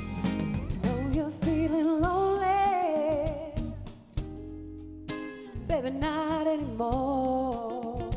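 Live soul band playing, with drums, bass, electric guitar and keyboard under a woman singing lead; she holds long notes with vibrato in two phrases, the first starting about a second and a half in and the second near the two-thirds mark.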